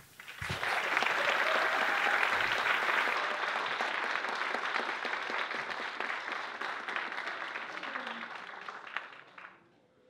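Audience applauding at the end of a talk: many hands clapping, swelling up about half a second in and gradually fading out near the end.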